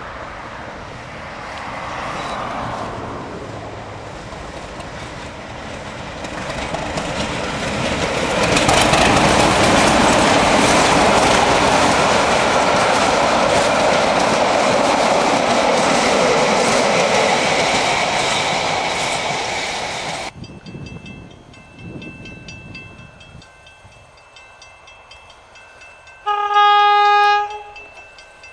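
Y-class diesel locomotive Y4 hauling a passenger train past at close range, its engine and wheels loud for a long stretch. The train then runs quieter in the distance, and near the end the locomotive sounds its horn in one blast of about a second.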